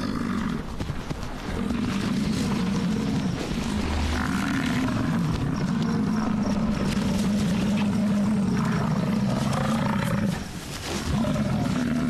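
American bison bulls bellowing in the summer rut: long, low calls that run almost without a break, with a short pause near the end.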